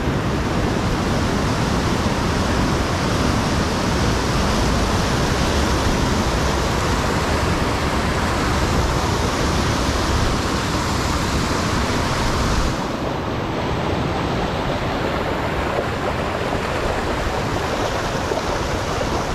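Muddy floodwater raging through a concrete inlet channel: a steady, loud rush of fast, turbulent water, its low rumble easing slightly about two-thirds of the way through.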